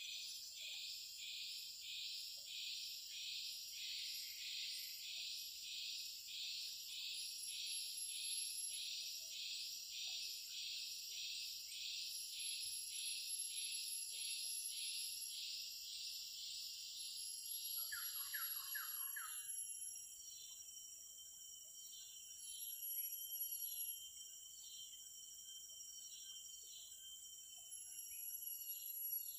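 Forest insects and birds: a loud insect chorus pulsing about twice a second over a steady high insect hum, the pulsing stopping a little past halfway. Short bird chirps follow, with a brief quick run of lower bird notes around the middle.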